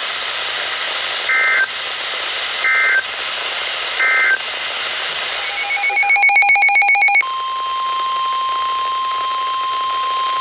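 Over steady radio hiss, three short bursts of weather-alert data tones sound, the end-of-message code closing a severe thunderstorm warning. A loud pulsed buzz about two seconds long follows. About seven seconds in comes the single steady 1050 Hz NOAA Weather Radio warning alarm tone, which announces a new warning.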